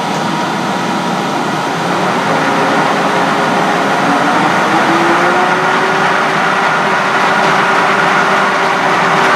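Hendey tool-and-gear lathe running under power, its gear train giving a steady mechanical whir. About four seconds in, a tone appears and climbs in pitch as the speed is turned up, then holds. The gears are running dry and want oiling.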